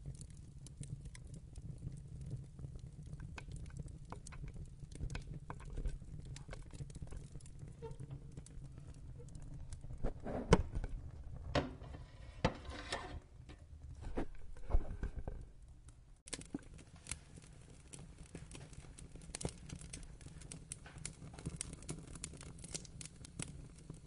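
Wood fire burning, with a low steady rumble of flames under scattered crackles and pops. A run of louder, sharper pops comes from about ten to fifteen seconds in.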